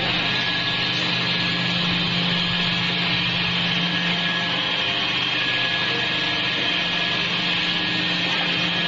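Scrap metal baler's hydraulic power unit running with a steady mechanical drone and a constant low hum.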